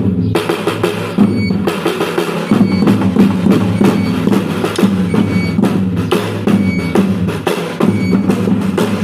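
Live folk music from a percussion ensemble: drums beating a quick, steady dance rhythm over low sustained pitched notes.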